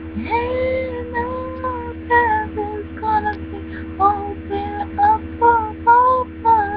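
A young woman singing alone, without accompaniment, through a string of held notes. A steady electrical hum runs underneath.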